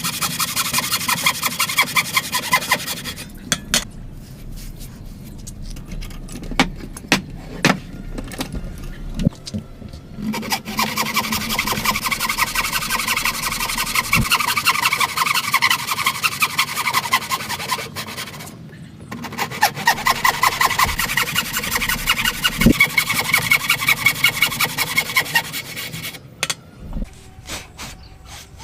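A hand tool working wood in fast back-and-forth scraping strokes, like sawing or rasping. A quieter stretch between about 3 and 10 seconds in carries a few sharp knocks, and the strokes stop briefly again near 18 seconds.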